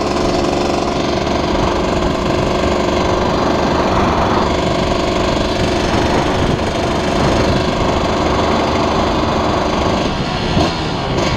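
KTM dirt bike engine running steadily while ridden along a road, held to gentle throttle because the engine is still being run in.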